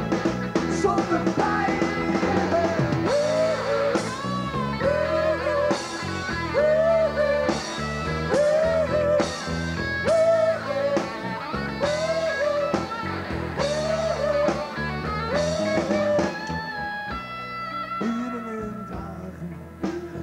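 Live rock band playing: guitar and drums, with a short melodic phrase repeating about every one and a half seconds, settling into held notes near the end.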